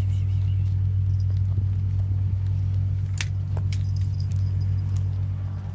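A steady low hum, with a couple of light clicks about three and a half seconds in.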